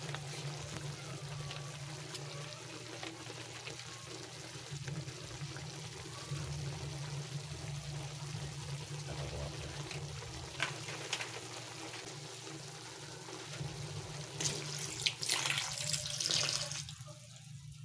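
Tap water running into a sink. It gets louder for about two seconds near the end, then is cut off.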